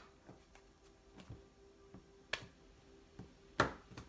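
A deck of tarot cards handled in the hands: a few sharp snaps and taps of the cards, the two loudest about two and a half and three and a half seconds in, over a faint steady hum.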